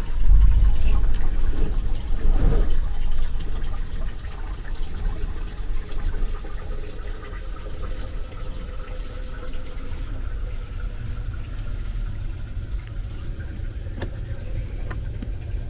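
Strong storm wind gusting, buffeting the microphone with a low rumble that is loudest in the first few seconds, then carries on steadily.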